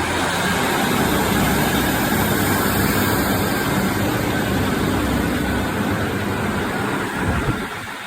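Diesel multiple-unit train engine running, a steady low rumble that drops away near the end.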